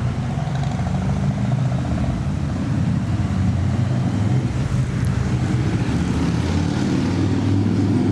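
Motor vehicle engine running close by, a steady low hum with a constant pitch that grows a little louder through the middle.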